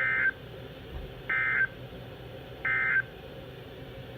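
Emergency Alert System end-of-message signal: three short bursts of SAME digital data tones, each about a third of a second long and a little over a second apart, marking the end of the alert.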